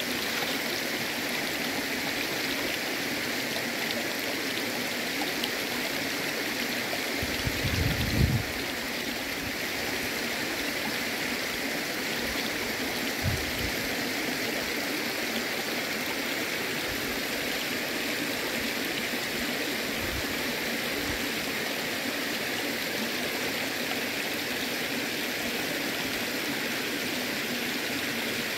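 A shallow river running steadily over rocks, low after a three-month dry season. A brief low thump about eight seconds in, with a smaller knock a few seconds later.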